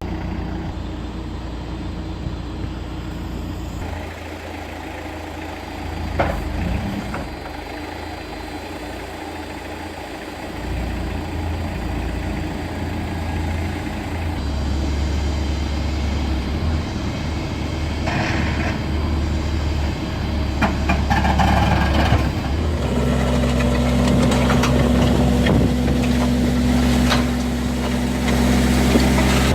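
Martini & Duranti Elephant farm forklift's engine running with a snow blade on its skid-steer hitch, its note stepping up a few times as the machine works and getting gradually louder. A few short knocks and clanks come through over the engine.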